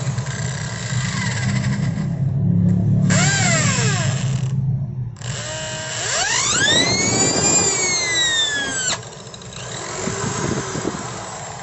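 10 mm electric drill running with a steady motor hum and a whine that rises and falls in pitch twice, cutting off sharply about nine seconds in. The chuck is held by hand while the motor spins on: the drive slips because the drill's pinion gear (gear nanas) is worn.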